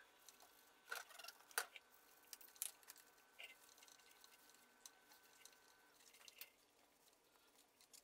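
Faint towel wiping and handling noises on a wet Brembo brake caliper, with a few small clicks and squishes in the first few seconds.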